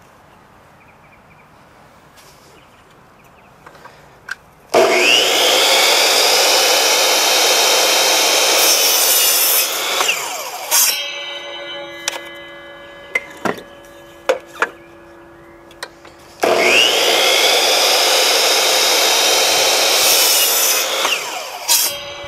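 Electric miter saw started twice, each time whining up to speed and running about five seconds while it cuts a 45-degree miter through a short wooden brace, then winding down. Knocks of the wood being handled and turned between the two cuts.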